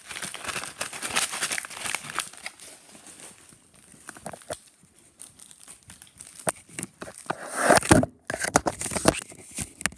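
Plastic candy pouch crinkling and crackling as it is handled, densest in the first few seconds and then in scattered crackles. A louder rustling bump comes near eight seconds in.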